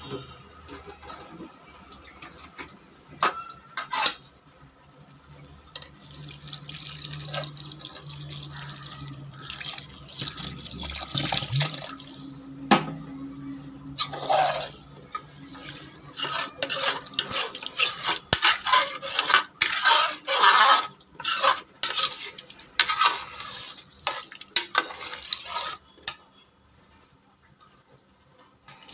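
Water being poured in several pours into a metal cooking pot of uncooked rice, potatoes and chicken for pulao, splashing most around the middle and later part. There are a couple of sharp metal clinks of a ladle against the pot about three and four seconds in.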